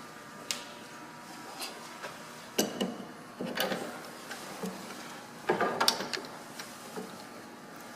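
Metal fittings and tools being handled during reassembly: scattered small clicks and clinks, with louder clattering bursts about two and a half, three and a half and five and a half seconds in.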